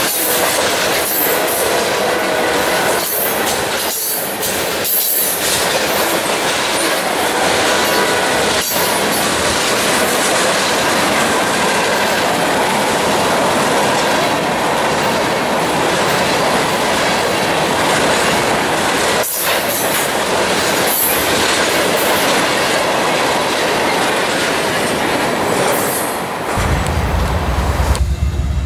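Freight train of loaded tank cars and covered hopper cars passing at speed: a steady, loud rolling noise of steel wheels on rail. About 26 seconds in it gives way to the deep rumble of a diesel locomotive's engine as a CN ES44DC pulls a train out.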